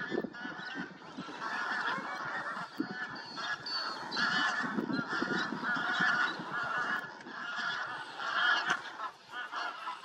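A large flock of waterfowl calling in flight: a dense, continuous chorus of many overlapping calls, with a low rumble beneath.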